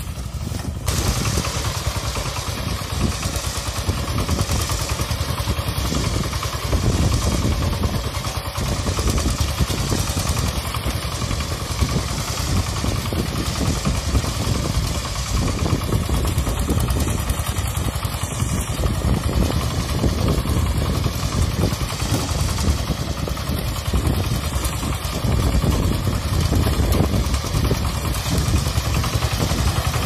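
Kentavr MB 1010DE-6 walk-behind tractor's single-cylinder diesel engine running steadily under load while it tows a trailer of firewood over frozen ground.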